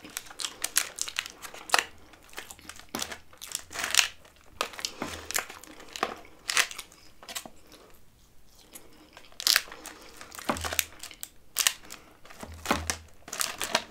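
Close-miked chewing of fries with Dutch beef stew: wet mouth clicks and smacks at an irregular pace, a few of them loud and sharp.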